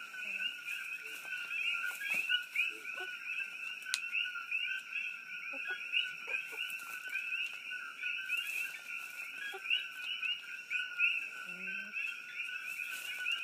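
Dense night chorus of many coqui frogs, their short two-note "co-qui" calls overlapping without a break.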